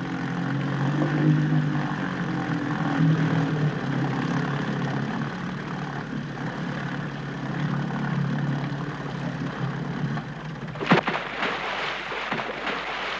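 A small boat's motor running steadily with a low hum. About eleven seconds in there is a sudden sharp burst of noise, after which the sound turns rougher and choppier.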